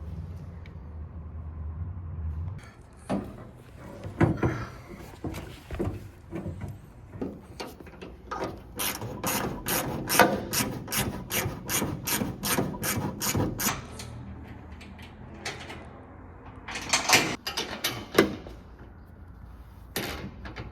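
Hand-tool work on the van's platform rack and hinge brackets: a steady low hum that stops about 2.5 s in, scattered knocks, then a regular run of sharp rasping strokes about three or four a second for roughly five seconds, and a few louder knocks near the end.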